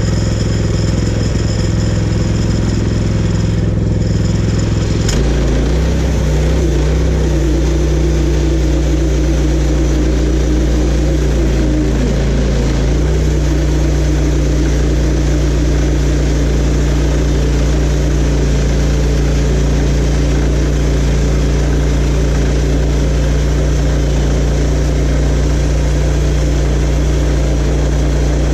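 Engine of a portable band sawmill running steadily, its note changing abruptly about five seconds in.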